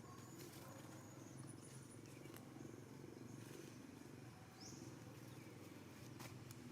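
Near silence: a faint steady low hum with a few faint clicks, and one short high chirp about four and a half seconds in.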